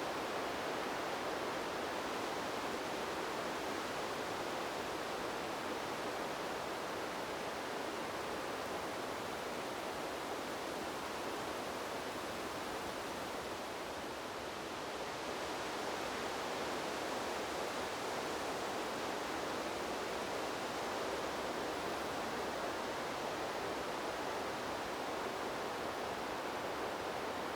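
Wind sound effect: a steady rushing hiss that eases slightly about halfway through, then picks up again.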